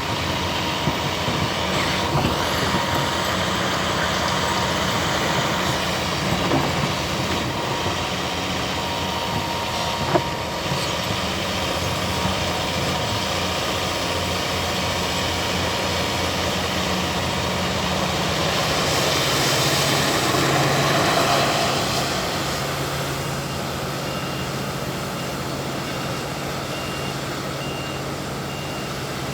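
Heavy diesel earthmoving machinery running steadily, with a few brief knocks. The engine swells and eases off around twenty seconds in, and a reversing alarm beeps faintly in the last several seconds.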